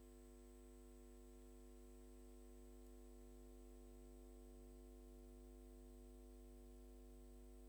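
Near silence: a faint, steady hum made of several constant tones, with no music or speech.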